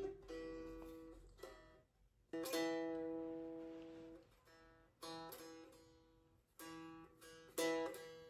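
A traditional plucked string instrument being strummed slowly. There are about seven uneven chords, each left to ring and fade; the loudest comes about two and a half seconds in and another near the end.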